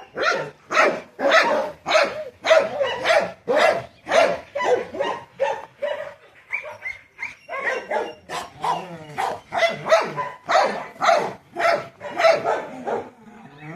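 Dog barking over and over, roughly two to three barks a second, with a short sliding whine about eight seconds in.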